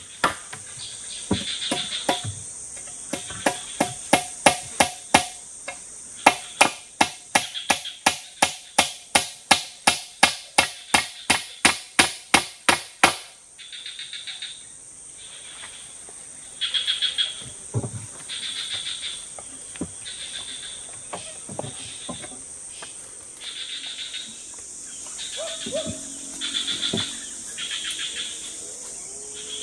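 A blade chopping in a quick, even rhythm, about two to three strikes a second, stopping about thirteen seconds in. Then forest insects chirp in pulsing bursts over a steady high insect whine.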